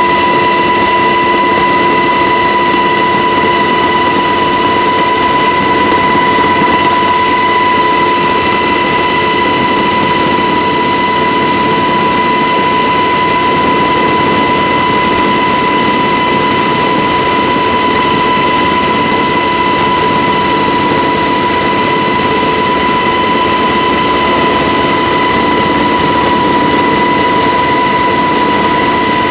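UH-60 Black Hawk helicopter in flight, heard from inside the cabin: loud, steady rotor and twin-turbine din with a constant high whine.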